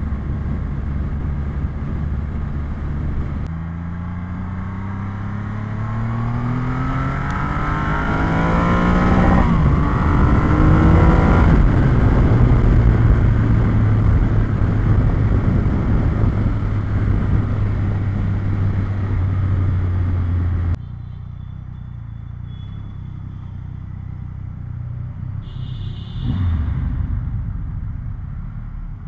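Triumph Rocket 3R's three-cylinder engine heard while riding: a steady note, then revs rising under acceleration through a gear change, then steady cruising. The sound drops suddenly about two-thirds through, with a short louder burst near the end.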